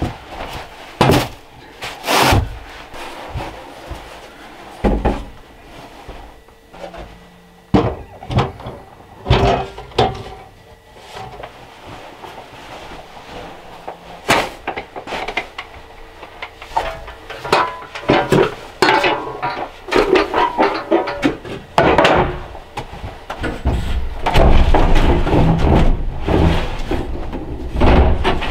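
A series of irregular knocks and thuds from objects being handled and set down, with a longer low scraping rumble near the end.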